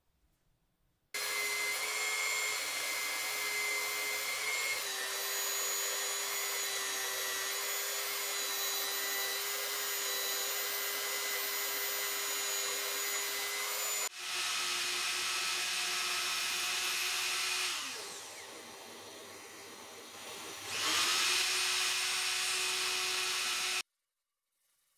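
Belt sander clamped upside down as a bench sander, running steadily while a small wooden block is pressed onto the belt. Past the middle its pitch and level drop for a few seconds, then jump back up, and it cuts off abruptly near the end.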